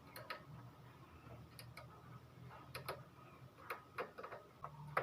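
Scattered light clicks and taps, irregular and a few a second at most, from hands handling spliced wires and plastic parts inside an opened printer.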